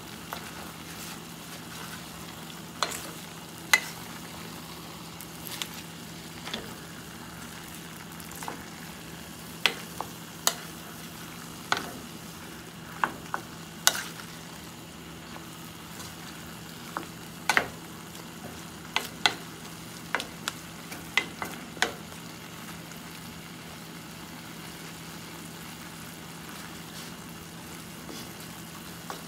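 Wooden spatula stirring chicken, glass noodles and green onions in a stainless steel pot, knocking against the pot's side in irregular sharp clicks over a steady sizzle from the pan. The knocks stop for the last several seconds while the sizzle goes on.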